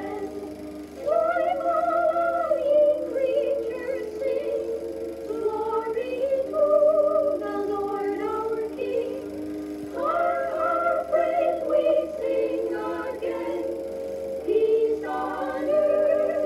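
A choir singing in parts, held notes in slow phrases with short breaths between them. It is the soundtrack of a 1955 MGM cartoon, heard as played back from a Super 8 sound film print.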